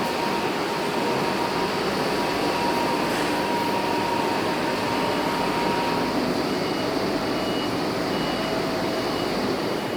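Yuchai YC4D60-D21 turbocharged diesel engine of a 30 kW generator set running at a steady speed. Faint short high tones recur in the second half.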